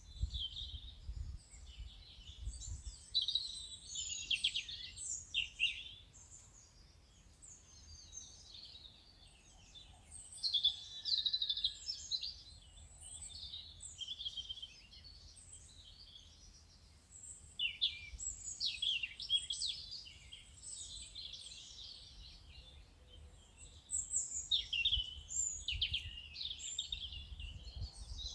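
A chorus of small songbirds chirping and trilling, in busy spells of overlapping calls with quieter gaps between, over a faint low rumble.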